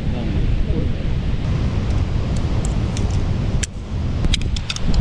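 Wind buffeting the microphone: a heavy, uneven low rumble over steady outdoor noise, with a few sharp clicks in the second half.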